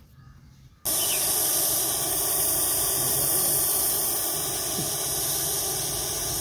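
Russell's viper giving its loud defensive hiss, a steady harsh hiss that starts abruptly about a second in.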